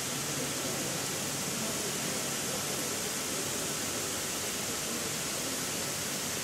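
Sprinkler installation spraying fine curtains of water, a steady hiss of falling spray, with a faint low hum beneath.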